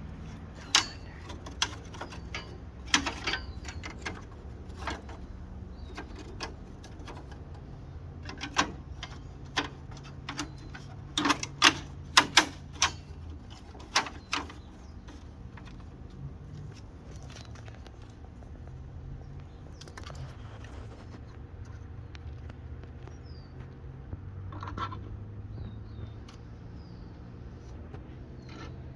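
A run of sharp clicks, clacks and knocks of hand tools and parts being handled while fitting the lights, thickest about 11 to 13 seconds in and stopping a little after the halfway point. Then a steady low hum, with a few short bird chirps near the end.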